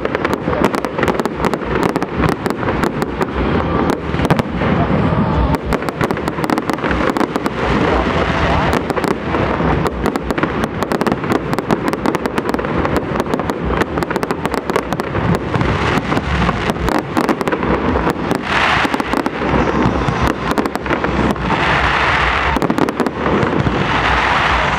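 Fireworks display: a continuous, rapid barrage of aerial shell bursts, bang after bang, with patches of dense crackling in the last third.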